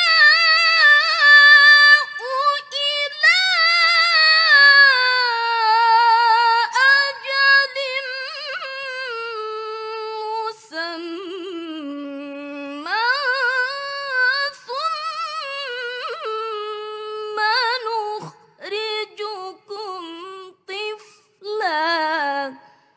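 A teenage girl's solo Qur'an recitation (tilawah) in the melodic mujawwad style: long held notes with wavering ornaments, sinking lower in pitch midway, then climbing again. Near the end it breaks into shorter phrases with brief pauses, and the last phrase stops just before the end.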